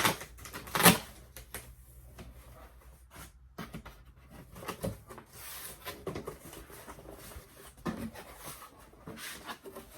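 A shipping box being opened and its paper contents handled: two sharp knocks near the start, then scattered rustling of paper and cardboard with light clicks and taps.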